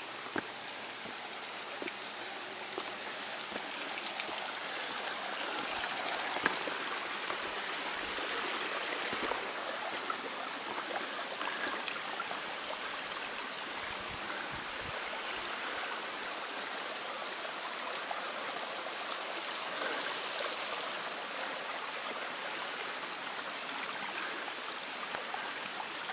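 Mountain stream rushing steadily over rocks, growing a little louder over the first few seconds, with a few faint clicks.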